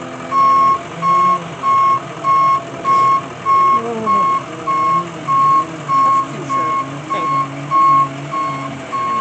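Reversing alarm of a shuttle-type bus backing up: a single-pitch electronic beep repeating evenly, just under twice a second, starting a moment in.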